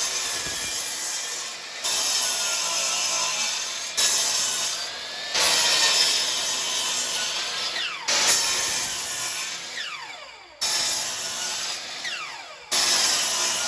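Power saw cutting off the painted ends of two-by-four boards: about seven short cuts in a row, each starting suddenly and fading, with the blade's pitch dropping as it winds down after several of them.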